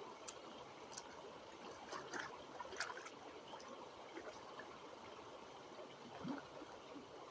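Creek water trickling faintly and steadily, with a few brief sharp splashes, the loudest about two to three seconds in.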